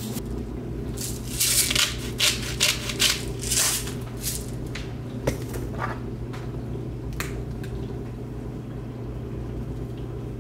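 Short rustling and shuffling noises, with a few light clicks of kitchen things being handled, over a steady low hum from a kitchen appliance. The rustles are busiest in the first few seconds.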